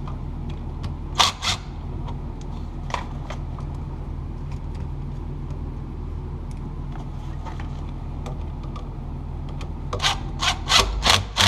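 Light switch and its hardware being handled and fitted into the box with hand tools: a few sharp clicks and taps, then a quick run of clicks near the end, over a steady low hum.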